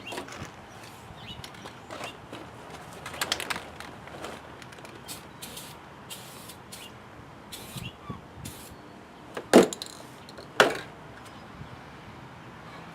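Snow plow parts and tools being handled during repair: scattered clicks, light knocks and brief scrapes, with two sharp knocks about a second apart about two-thirds of the way through.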